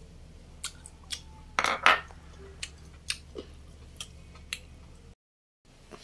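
Chopsticks and ceramic bowls clinking and tapping in a string of short sharp knocks, the loudest a quick cluster about two seconds in. The sound drops out briefly near the end.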